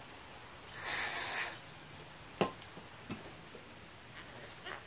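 Spray can of parts cleaner giving a short hiss of about a second as it is sprayed into carburetor parts, followed by two small clicks of parts being handled.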